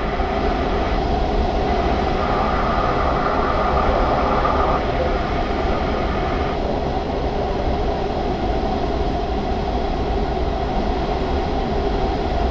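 Steady rush of air past the canopy of a Grob 103 glider in flight, with no engine. A higher hiss comes in about a second in, is strongest from about two to five seconds, and fades out after about six seconds.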